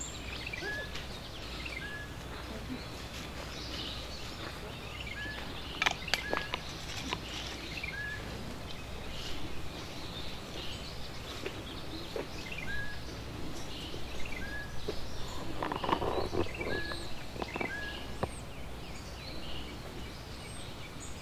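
Outdoor background ambience with a bird repeating a short chirp every second or two, a few sharp clicks about six seconds in, and a brief louder stretch of low, muffled sounds around sixteen seconds.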